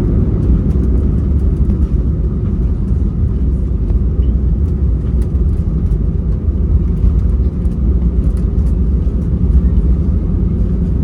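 Steady low rumble inside the cabin of an Airbus A320-200 during its landing, with a few faint clicks.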